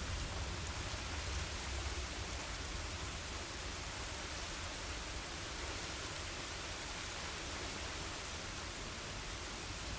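Steady rain making an even hiss, with the last of a low thunder rumble dying away at the start.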